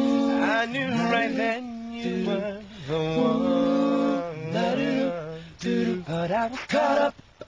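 A young man singing unaccompanied, with long held notes that slide in pitch and short breaks between phrases.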